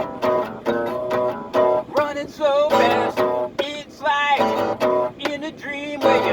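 Music: an acoustic guitar strummed in a steady rhythm, joined by a singing voice about two seconds in.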